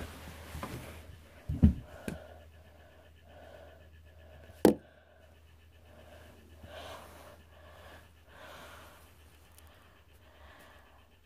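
A child breathing softly close to the microphone, about one breath every second and a half, with a couple of handling thumps early on and one sharp knock about four and a half seconds in.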